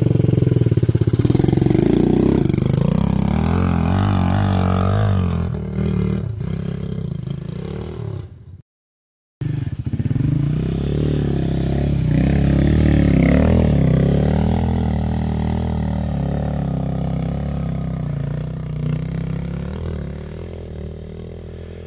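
Small dirt bike engines running and revving, the pitch rising and falling. The sound cuts out for a moment about nine seconds in, then a dirt bike engine revs as it climbs away and slowly fades near the end.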